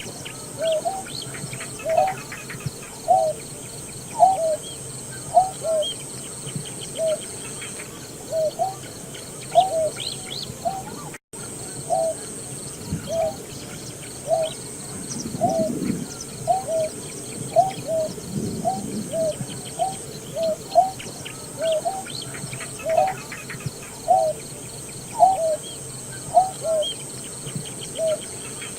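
Greater painted-snipe calling: a long, steady run of short, low hooting notes, about two a second, each with a slight upward hook. The calls break off for a moment a little before halfway. Fainter chirps of other birds and a steady high whine sit behind.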